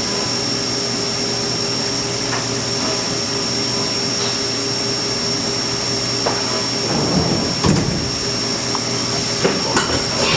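CNC milling machine cutting aluminium: a steady machine noise with a constant high spindle whine, joined about two-thirds of the way through by irregular crunching and clattering as the cutter bites.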